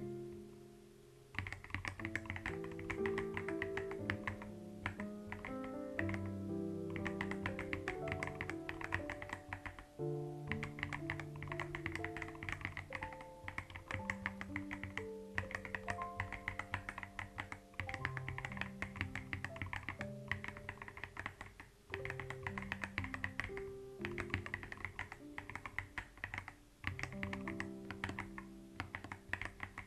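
Typing on a computer keyboard: runs of quick clicky keystrokes broken by short pauses, over soft, slow background music.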